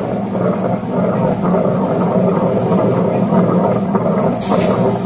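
Semi-automatic wet grinder running, its motor and turning drum making a steady hum with a rumbling churn of batter. A brief hiss comes near the end.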